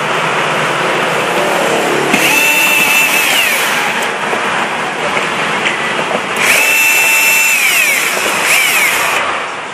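Cordless drill-driver working screws on a TV mainboard: two runs of a high motor whine and a short third burst, the pitch dropping as the trigger is released each time.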